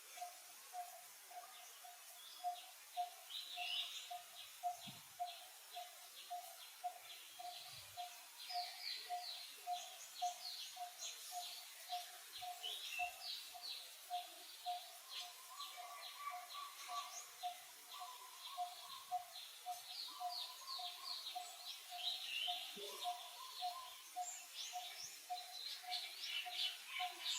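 Wild birds chirping and trilling, with many short calls overlapping. Underneath, a steady pulsed note repeats about three or four times a second without a break.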